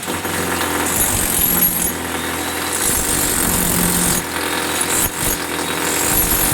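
A power tool running steadily, its high hiss fading in and out every second or two.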